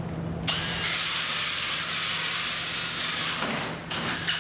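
Cordless drill driving a carbide-tooth Milwaukee HoleDozer hole saw through cement backer board. It cuts steadily for about three seconds, starting about half a second in, then stops with a brief second burst near the end, going through the board with no problem.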